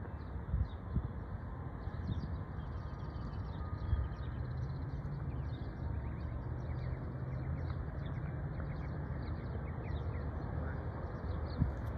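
Small birds chirping over and over, high and short, over a steady low rumble that becomes a little stronger about four seconds in.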